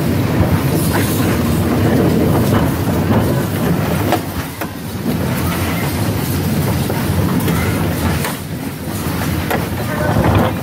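Bumper cars running and jostling: a steady low rumbling rattle, with scattered knocks and clacks.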